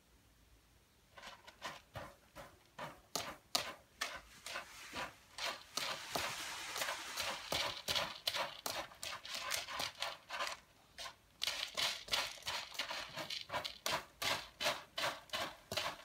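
Kitten scratching and pawing at pellet cat litter in a plastic litter box, a run of quick scraping strokes that starts about a second in: a cat burying its droppings.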